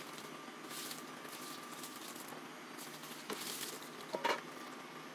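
Rummaging sounds: a few brief rustling swishes and light clicks and knocks, the loudest knocks a little after four seconds in.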